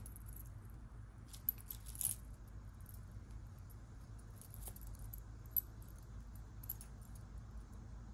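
Small metal jewelry, earrings and chain, clinking and jingling lightly and sparsely as fingers untangle and handle it, over a faint steady low hum.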